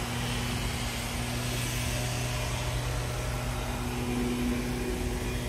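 A car running steadily with a low, even hum.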